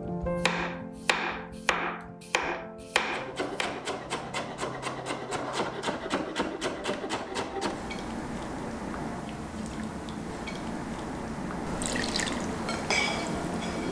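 Kitchen knife cutting raw potato on a wooden board: four single chops, then fast, even chopping of about five strokes a second as the potato is cut into thin matchsticks, stopping about two-thirds of the way through. A steady rush of water follows, and near the end the potato strips are tipped into a wire-mesh strainer with a few light clinks.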